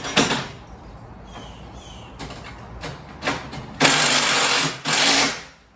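Power driver running in two long bursts near the end, with a steady motor pitch, driving screws through a hinge into a steel garage door panel. A few short knocks and taps come before.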